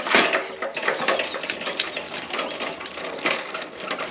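Irregular clattering and crackling, a quick run of short knocks with a sharp one at the start.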